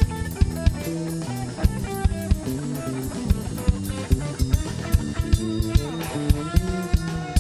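A band playing live at a soundcheck: guitar lines over a drum kit keeping a steady beat.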